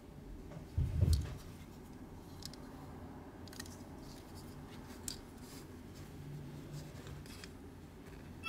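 Fingers handling a small plastic toy gramophone: a low thump about a second in, then faint scattered clicks and rubbing of fingers on plastic.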